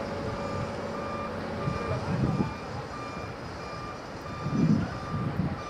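A construction machine's backup alarm beeping steadily, about three beeps every two seconds, over the running of heavy diesel equipment. There are two louder low rumbles about two and four and a half seconds in.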